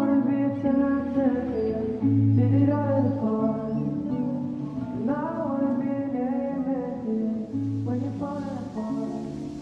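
Background music: a song with a singing voice over guitar and bass.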